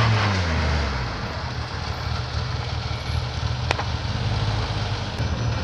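Renault Clio rally car's engine, its revs falling off in the first half-second, then running low and steady near idle. A single sharp click comes about two-thirds through.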